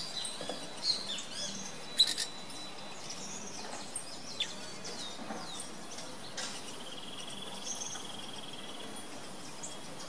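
Several birds singing and calling: short whistled chirps and sweeping notes, with sharp loud chips about two seconds in, and a steady rapid trill lasting about two seconds in the second half.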